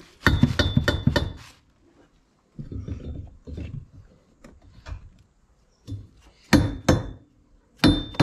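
Dead blow hammer knocking a metal rear strut brace into line over the strut mounts. A quick run of about half a dozen blows comes first, then lighter taps, then heavier blows near the end; the loudest strikes leave a short metallic ring.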